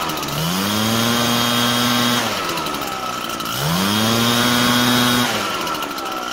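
Zenoah EBZ8500 backpack blower's two-stroke engine revved up from idle twice, each time climbing quickly to high speed, holding for about two seconds and dropping back to idle. It picks up cleanly without stalling, the sign that the carburettor repair has cured the stall on throttle.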